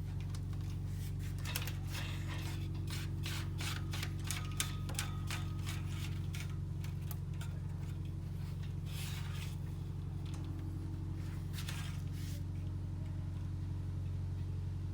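A steady low background rumble, with scattered light clicks and rustles from electrical wire being handled and pulled through a panel.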